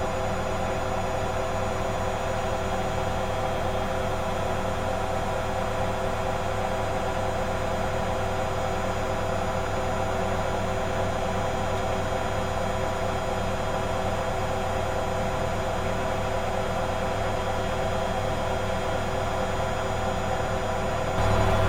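Servis MK322 washing machine's brush motor and drum spinning at a steady speed, a constant motor whine over a hum of drum noise. A louder low hum comes in just before the end.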